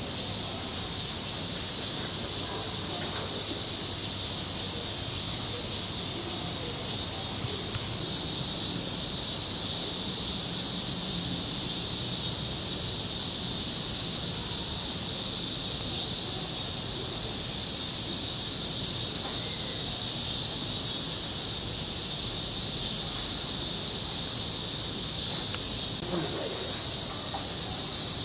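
Steady, high-pitched chorus of cicadas: a dense hiss with a faint pulsing texture that does not let up.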